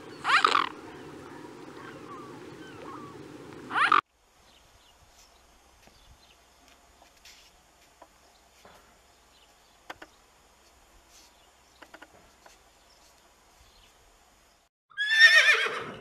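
A horse whinnying near the end, a loud call that falls steeply in pitch. Before it, two short calls over a steady low noise in the first few seconds, then a long quiet stretch with faint scattered ticks.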